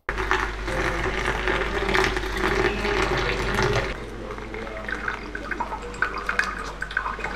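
Coffee machine running, with liquid pouring into a cup over a steady machine hum. The hum eases about four seconds in.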